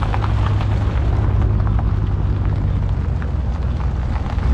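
Dodge Charger Scat Pack's 392 HEMI V8 running at low speed: a deep, steady exhaust rumble with no revving.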